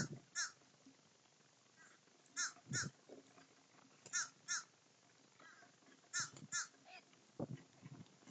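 Crows cawing in short calls, grouped in twos and threes about every two seconds. Low thumps come in between as the birds flap and land on the wooden feeder.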